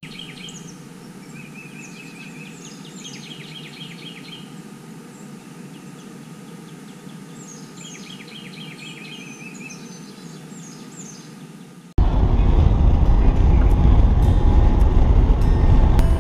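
Songbirds singing against a faint outdoor background, in repeated trilled phrases and short falling chirps. About twelve seconds in, it cuts to the steady, much louder low rumble of road and engine noise inside a moving car.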